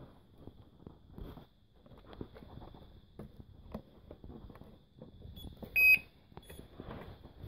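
A short, loud electronic beep about six seconds in, over scattered faint clicks and rustles of handling noise and a faint steady high whine.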